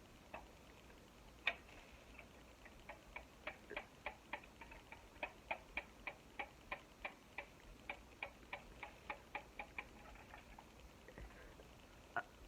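Faint, light clicking from a fire alarm being handled and tampered with: one sharper click early, then a run of short clicks about three or four a second for several seconds that stops a couple of seconds before the end.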